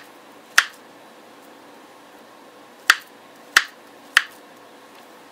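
Kitchen knife slicing through a banana and knocking on a wooden cutting board: five sharp knocks, two close together at the start, then a pause of about two seconds before three more about half a second apart.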